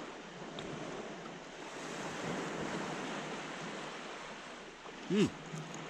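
Surf washing on a pebble shore, a steady hiss of waves. About five seconds in, a man gives a short hummed 'mm'.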